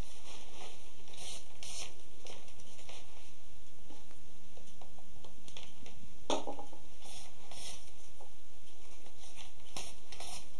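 Rustling and scraping of wet split pine-root strands being pulled through the coils of a hand-sewn basket, with scattered sharp crackles, the loudest about six seconds in.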